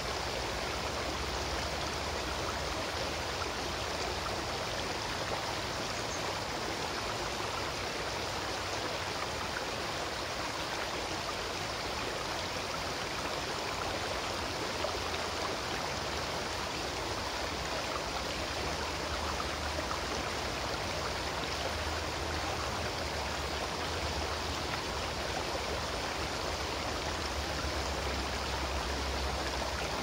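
Shallow mountain river flowing over stones: a steady, even rush of running water.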